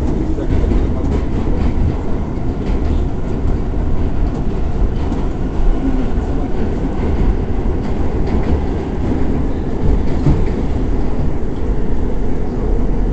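An R46 subway car heard from inside, running through the tunnel: a steady rumble of wheels on rail, with light clatter from the track.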